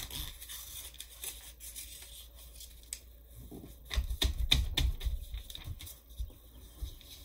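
A sheet of paper being folded and creased by hand on a desk: soft rustling and sliding of the paper, with a cluster of sharper scrapes and low thumps about four seconds in as the hands press along the fold.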